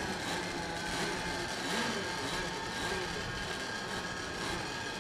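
RC model boat engines running on the lake during mill time, the period when the boats are started and circle before the race start. A steady high whine, with some revs rising and falling.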